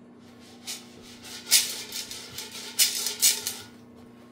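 Unpopped popcorn kernels rattling inside a lidded cooking pot as it is shaken on the stove, in several bursts, the loudest about one and a half seconds in and again around three seconds.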